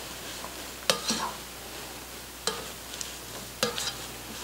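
A spatula stirring shredded turkey and onions in a hot Dutch oven, over a steady sizzle of the sautéing food, with a few sharp knocks of the spatula against the pan.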